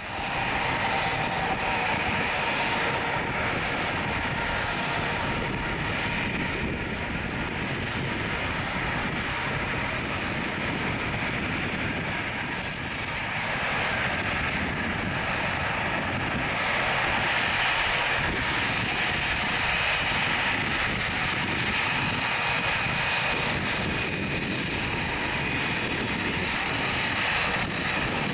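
Airbus A319CJ's twin IAE V2500 turbofans at takeoff thrust, heard from behind during the takeoff roll and climb-out. The engine noise is steady, with a high whine over it, dips slightly midway and then swells again.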